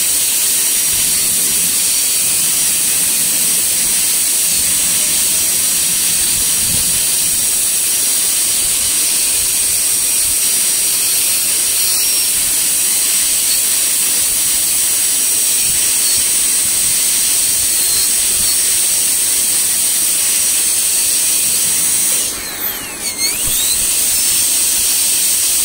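High-speed air-turbine dental handpiece running with its water spray, a steady high-pitched hiss as the bur cuts a model incisor for a crown preparation. About 22 seconds in the sound briefly drops and its whine slides down and back up as the turbine slows and spins up again.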